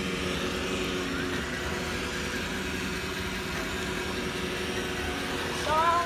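iRobot Roomba i1+ robot vacuum running with a steady motor hum, with a few short rising tones near the end.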